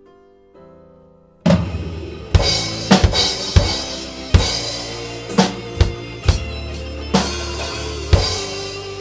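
Acoustic drum kit played along to a band backing track. A quiet piano intro plays first; about a second and a half in, the kit comes in with a crash cymbal and bass drum and plays a run of loud accented hits, with cymbals ringing over the band.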